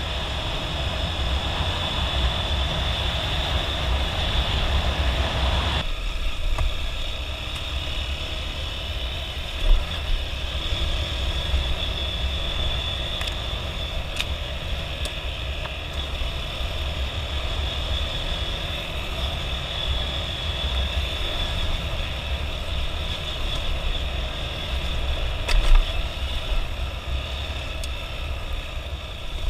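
Motorcycle riding noise with heavy wind rumble on the microphone; the sound changes abruptly about six seconds in.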